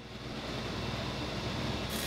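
Table saw motor spinning up and running steadily at speed. Just before the end a hiss joins in as the blade starts to cut into a spruce board.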